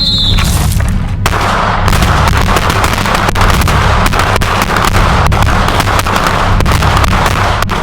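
Rapid pistol fire from several shooters on a range: many sharp shots a second, overlapping and irregular, over music with a steady bass.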